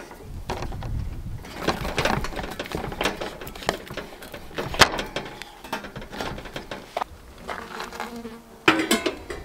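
Horse flies buzzing around, over the clicks and metal knocks of a two-burner propane camp stove being set up: a propane cylinder fitted, then a stainless steel kettle set on the grate near the end with a sharp clank.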